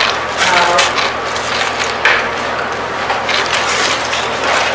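Handling noise of people eating at a table: plastic water bottles crinkling, bags and paper rustling, and small irregular knocks and clicks.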